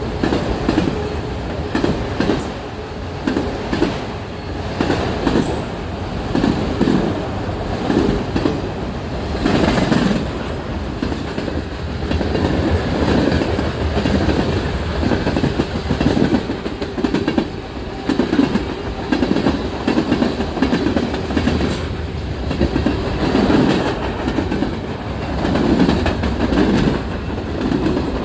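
BNSF freight train cars rolling past, their wheels clacking over the rail joints in a steady rhythm.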